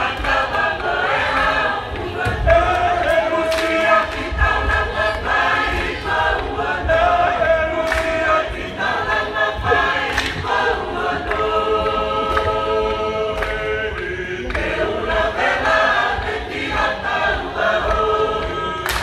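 Choir singing a Tongan lakalaka in several voice parts, holding long chords that shift every second or two, with a few sharp claps.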